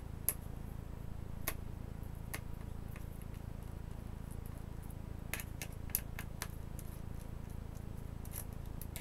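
Small irregular clicks and ticks of a precision screwdriver turning out screws in an Asus C300S Chromebook's plastic base, about ten in all and several in quick succession a little past halfway, over a steady low hum.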